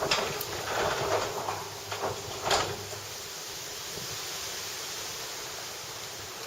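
Garage door moving: a few knocks and clatters in the first couple of seconds, then a steady mechanical hum as it travels.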